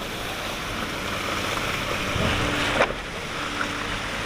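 Heavy construction machinery running steadily, with one sharp knock about two-thirds of the way through.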